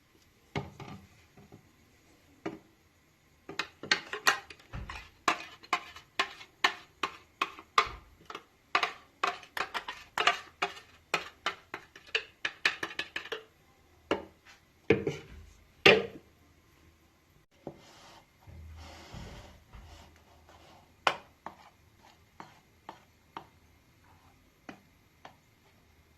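Kitchen utensil knocking against cookware: a quick run of clicks about three a second, then two louder knocks. A short scraping stretch follows, then a few sparser clicks.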